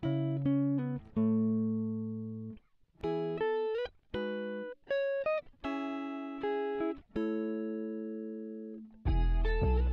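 Background music: clean, guitar-like plucked chords, each struck and left to ring and fade, some held about two seconds and others cut short. A fuller band sound with heavy bass comes in near the end.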